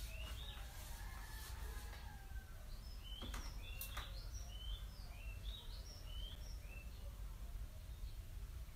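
Birds chirping in the background, a run of short high chirps through the middle, over a steady low hum. A couple of brief clicks come around three to four seconds in.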